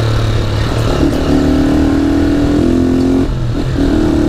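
Honda CG 150 Titan's single-cylinder four-stroke engine, carbureted and tuned, running with no air filter through a G-Moto sport exhaust while being ridden. The exhaust note climbs in pitch, drops out briefly a bit past three seconds in, then picks up again.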